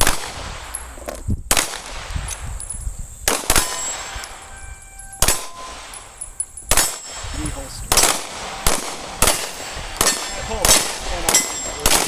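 Pistol shots fired in a string, a second or two apart at first, then coming faster, about two a second, through the second half.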